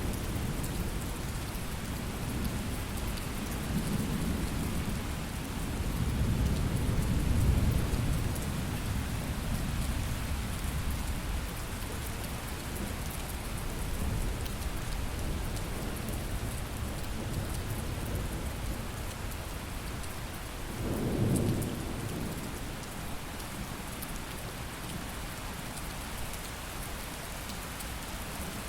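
Thunderstorm: steady heavy rain with rolling thunder, one long low rumble building in the first several seconds and a shorter rumble about twenty seconds in.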